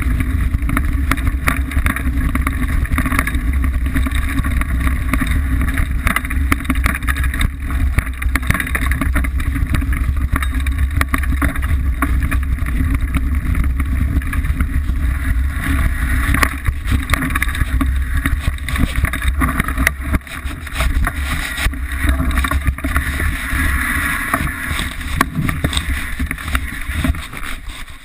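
Wind buffeting the microphone of a Liteville 301 mountain bike as it rides fast down a rocky dirt singletrail, with a steady low rumble, tyre noise and constant small rattles and knocks from the bike over the stones. The low rumble eases about two-thirds of the way through as the bike slows.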